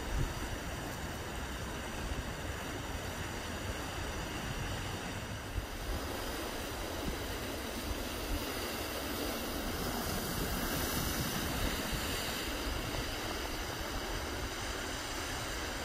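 Sea surf breaking and washing over a flat rocky shore, a steady rushing noise, with wind rumbling across the microphone.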